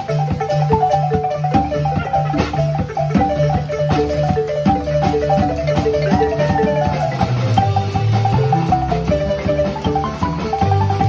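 Marimba ensemble playing a fast, interlocking pattern of short mallet notes over a steady bass marimba line.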